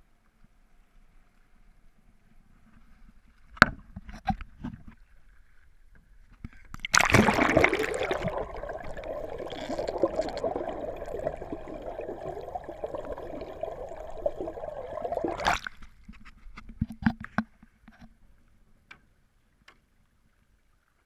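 A few splashes, then a loud bubbling rush of water for about nine seconds as the camera is dunked under the surface beside a paddled outrigger canoe. The rush cuts off suddenly when the camera surfaces, and a few more splashes follow.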